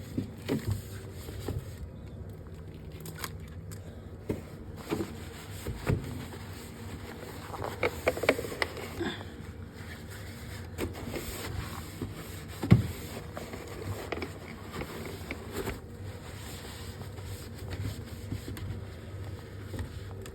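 Scattered knocks, clicks and scrapes of items and surfaces being handled during a fridge clean-out, over a steady low hum. The loudest is a single thump about thirteen seconds in.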